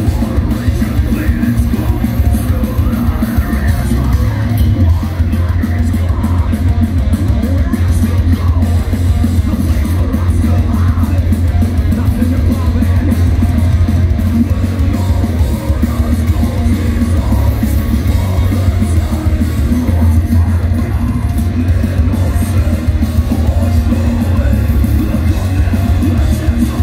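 Melodic death metal band playing live at full volume: distorted electric guitars and heavy bass with shouted vocals over the top.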